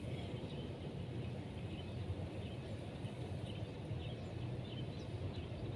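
Steady low outdoor background rumble with faint, scattered bird chirps over it.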